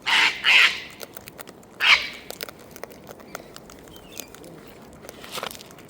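Wild cockatoo giving harsh, raspy screeches: two loud ones right at the start, a third just before two seconds in, and a fainter call near the end.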